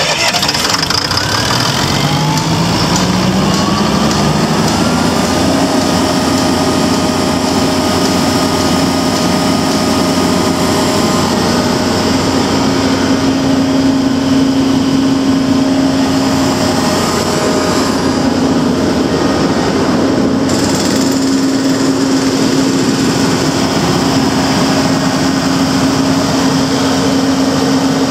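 Caterpillar 3126 inline-six diesel engine of a government-surplus generator set running. Its pitch rises steadily over the first five seconds or so as it comes up to speed, then holds a steady, even running note.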